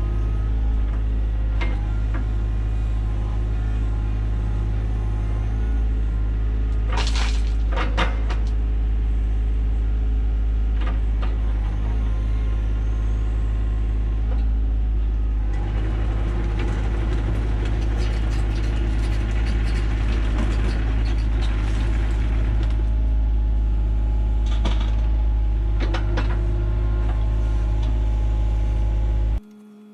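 John Deere 35G mini excavator's diesel engine running steadily under work, with a few short sharp sounds about seven seconds in and louder working noise from about halfway. It cuts off suddenly just before the end.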